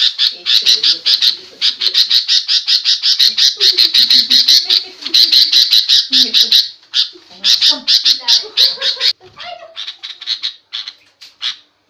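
Sooty-headed bulbul giving a loud, rapid harsh chattering call, about five or six notes a second in long bouts with short breaks. The run turns fainter and more broken about nine seconds in. This agitated scolding chatter is used as a lure to provoke other birds into answering.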